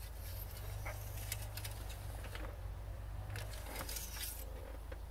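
Small clicks, scrapes and rag rustling as an engine's oil dipstick is handled and wiped clean, with a short burst of rustling about three and a half seconds in, over a steady low hum.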